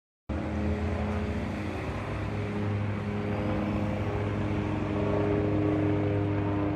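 Agusta helicopter sound effect: a steady engine-and-rotor drone with a few level pitched tones, cutting in abruptly about a quarter second in after a moment of silence.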